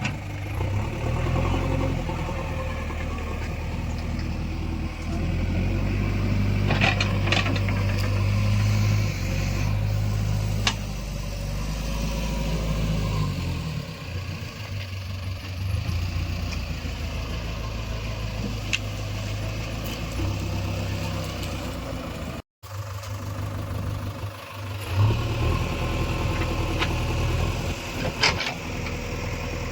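JCB 3DX backhoe loader's diesel engine running under working load, its pitch rising and falling as the hydraulics are worked, with a few sharp clacks.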